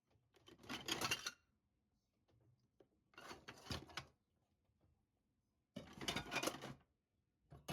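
Three short bursts of rattling, rustling clatter, each about a second long and a few seconds apart, from a kitten rummaging and knocking small things about in the night.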